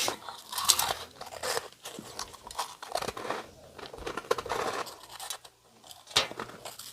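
Close-miked crunching bites and chewing of frozen snow, in irregular crisp crunches several times a second, with a short lull near the end before another loud bite.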